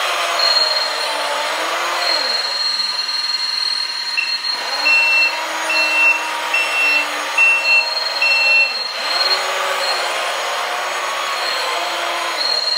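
Sound module of a LESU AT60H 1/16 RC articulated dump truck playing a truck engine sound that rises and falls as it drives. In the middle a reversing beep sounds about seven times, evenly spaced, as the truck backs up. A steady high whine comes and goes underneath, with the model's hydraulic pump running.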